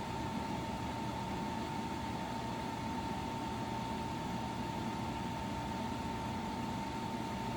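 EcoFlow Wave portable air conditioner running in fan-only mode with its fan at full speed and the compressor off, heard from about six feet away: a steady rush of air with a thin, steady high tone.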